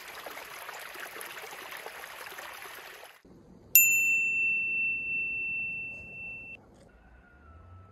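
A crackly hiss for about three seconds, then a single bright ding that rings on as one clear tone for about three seconds and cuts off abruptly.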